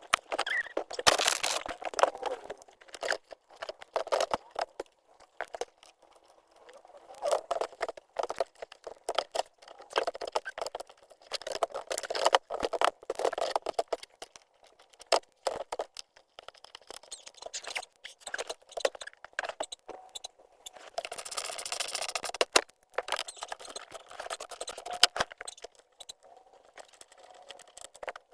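Hand work under a car's dashboard: irregular clicks, knocks and rattles of plastic and metal parts as a new blower motor is held up into its housing and bolted back in.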